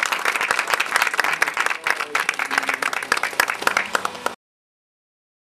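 A small group of people applauding, many hands clapping quickly and unevenly. The applause cuts off abruptly about four seconds in, followed by a moment of dead silence.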